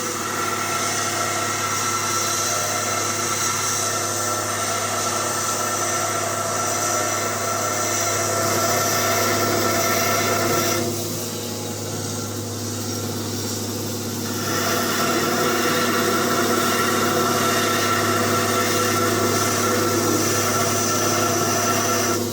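Grinder motor running steadily while steel knife blade is held against it, grinding a decorative pattern into the blade. The grinding drops out for about three seconds around the middle, leaving the motor hum, then resumes.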